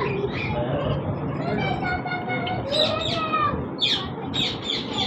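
Many caged pet birds chirping and calling at once, a dense overlapping chatter of short, quick chirps that grows busier in the second half.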